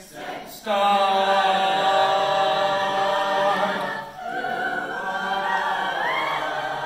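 Mixed choir of boys and girls singing. A loud held chord comes in suddenly just under a second in, breaks off briefly about four seconds in, and the singing goes on into a second sustained phrase.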